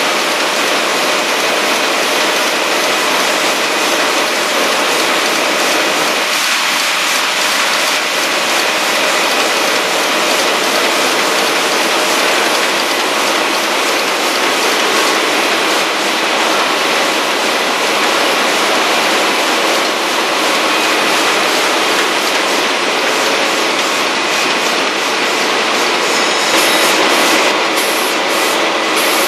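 Six-unit 1990 Heidelberg Speedmaster 102 SPP sheetfed offset press running in production: a loud, steady mechanical clatter with a few steady whining tones in it, a little louder near the end.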